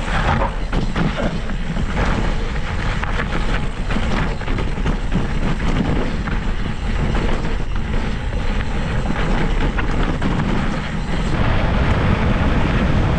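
Wind rushing over an action camera's microphone as a mountain bike rides fast over rough, rocky singletrack, with a run of knocks and rattles from the bike and tyres on the stones. Near the end the clatter gives way to a steadier tyre-and-wind rumble on a smoother dirt track.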